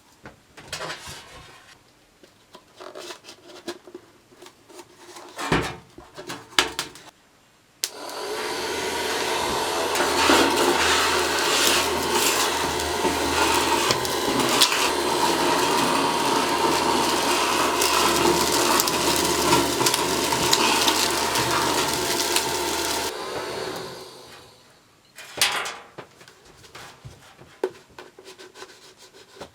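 Homemade 12 V vacuum cleaner driven by a cordless screwdriver motor, switched on about eight seconds in, running steadily with a motor whine for about fifteen seconds, then switched off and winding down. Light handling clicks and knocks come before and after.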